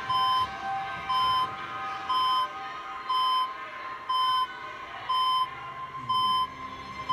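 Hospital patient monitor beeping steadily, one short high beep about once a second. A low music tone comes in near the end.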